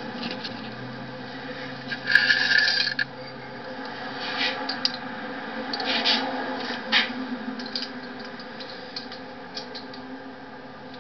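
Metal parts of an adjustable-stone cylinder hone clinking and scraping while it is handled and put back together after coming undone. About two seconds in there is a louder metallic rattle lasting about a second, followed by scattered sharp clinks.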